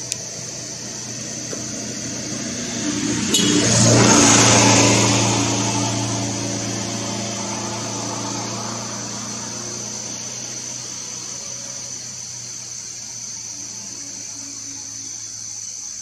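A motor's low hum with a rushing noise swells up about three seconds in, peaks around four seconds and fades away slowly, over a steady high-pitched buzz.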